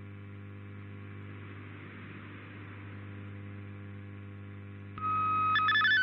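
Shortwave receiver static with a steady low hum in a gap between digital transmissions. About five seconds in, a single steady tone switches on, and near the end it breaks into the fast-stepping warble of MFSK digital-mode data.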